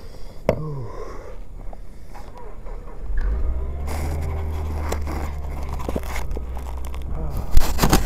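Camera handling noise: scraping and rubbing against the microphone as the camera is picked up and moved, with a sharp click about half a second in and a loud knock near the end. A steady low rumble sets in about three seconds in.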